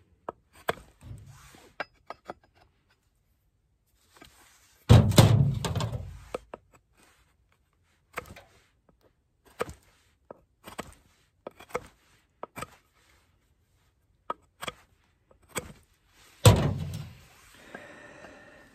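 Knife whittling a wooden axe handle: a run of short, sharp cutting strokes. Two heavy thunks stand out, about five seconds in and near the end.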